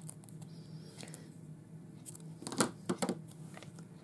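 Double-sided tape pulled off its roll and cut into a strip with scissors: a short rasp about half a second in, then a cluster of sharp snips and clicks about two and a half seconds in.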